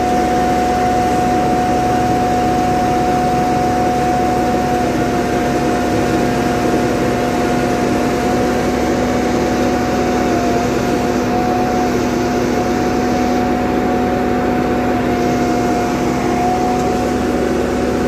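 Asphalt paver running steadily while laying asphalt: an engine drone with a steady whine over it.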